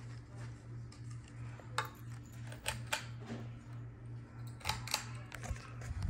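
Hampton Bay Minuet ceiling fan running, with a steady low motor hum that pulses in a regular rhythm. A few sharp metallic clicks come about two, three and five seconds in.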